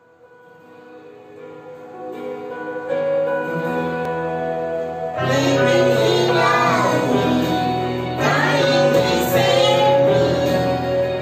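Yamaha electronic keyboard playing sustained chords, fading in from near silence. About five seconds in, a girl and a woman begin singing over it.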